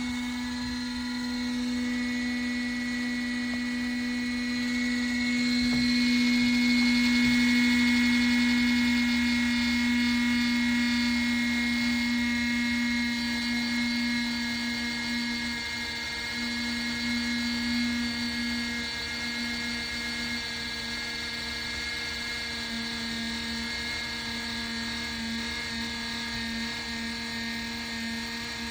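Small plug-in wall-outlet space heater's fan motor running: a steady whirring hum with a high whine above it, wavering a little in the second half.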